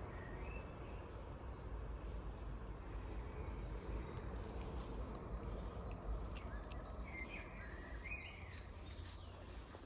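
Steady low rush of river water and wind on the microphone, with a few faint bird chirps near the start and again near the end, and light clicks through the second half.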